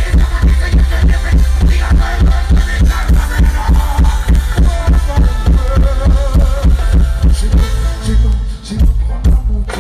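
Live band playing a loud, steady rhythm with heavy bass and drums through a PA system, amplified and echoing over an open ground.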